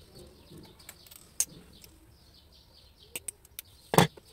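Small birds chirping over and over in the background, with a few sharp clicks from hands working a coaxial cable and its metal F-connector, and one louder knock near the end.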